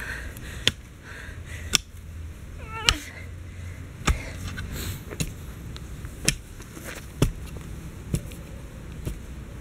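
A long-handled garden hoe striking and breaking up soil, about one sharp knock a second. A short call rising in pitch comes through about three seconds in.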